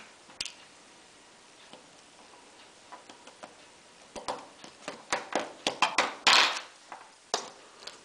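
Small clicks and taps of a precision screwdriver, tiny screws and the MP4 player's plastic case being handled: one click near the start, a quiet spell, then a run of irregular ticks and taps in the second half with a brief scraping rustle among them.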